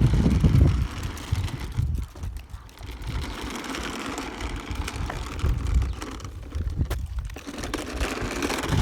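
Remote-control toy car driving, its small electric motor running, under an uneven low rumble that swells and dips.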